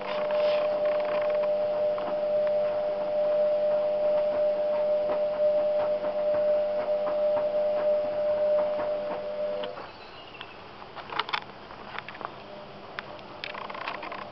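A steady machine hum of several held tones that cuts off suddenly about ten seconds in, with scattered faint clicks throughout.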